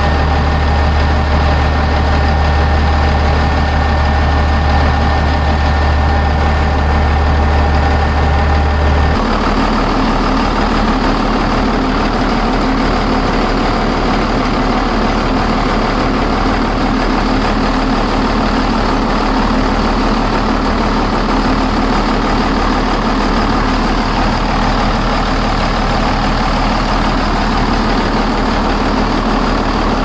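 JCB 3DX backhoe loader's diesel engine idling steadily. About nine seconds in, the sound changes: a steady high whine drops away and the engine's rumble sounds rougher.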